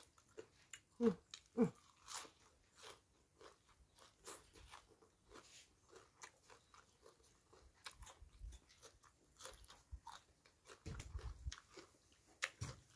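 A person chewing crunchy food close to the microphone: fresh raw greens eaten with spicy papaya salad, making a run of small crisp crunches.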